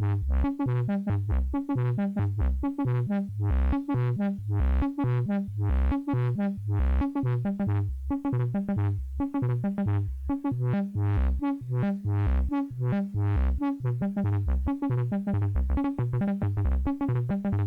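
Buchla Music Easel synthesizer playing a sequenced patch: a quick, asymmetrical rhythm of pitched electronic notes that change in pitch and length, the sequence shaped by envelopes with slowed attacks through the 208 ToolBox.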